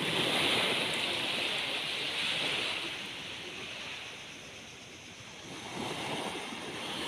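Sea waves washing onto a beach: one wave swells and breaks in the first few seconds and recedes, then another builds near the end.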